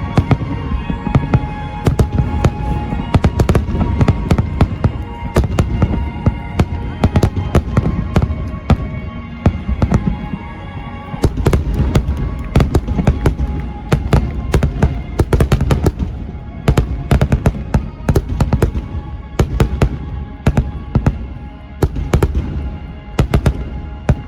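Aerial fireworks bursting in a dense, rapid barrage of sharp bangs and crackles, with music playing under them.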